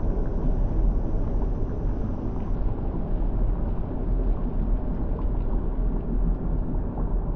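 Steady deep rumble of a volcanic eruption, even in level throughout, with most of its weight in the low bass.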